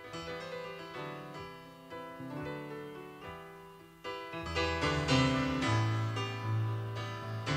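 Recorded pop song: a piano plays a repeating figure, and about four seconds in bass and a fuller band come in and the music gets louder.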